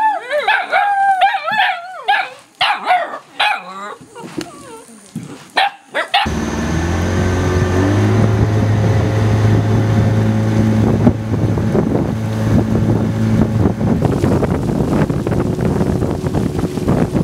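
Several dogs barking and yelping for about six seconds. Then, abruptly, a boat motor runs steadily on a dugout canoe under way.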